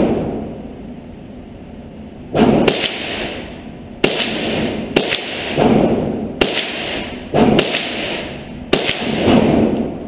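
Gunshots from a .22 handgun fired in an indoor range, about nine shots in a slow, uneven string roughly half a second to a second and a half apart, each followed by a short reverberant tail.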